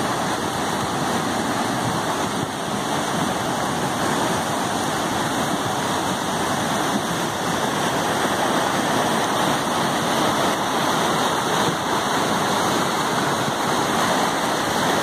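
Muddy floodwater rushing through a swollen stream channel in a steady, loud torrent.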